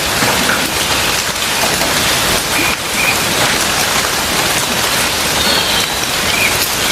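Steady rain falling on a surface, a dense, even hiss of drops. A few faint, short, high chirps sound through it.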